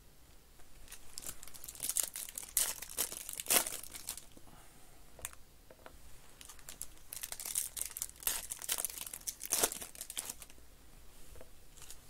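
Foil trading-card pack wrappers being torn open and crinkled by hand, in two spells of crackling about a second in and again near the middle, each with a sharper rip.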